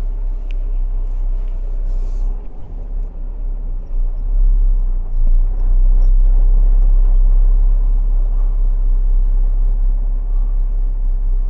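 Truck engine running under load while backing slowly, heard from inside the cab: a deep steady rumble that grows louder about four seconds in.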